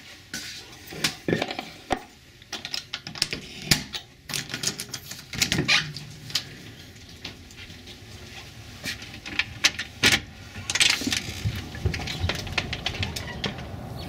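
Clicks and knocks from a house door's lock and handle being worked and the door being opened, with a steadier low outdoor hum from about ten seconds in.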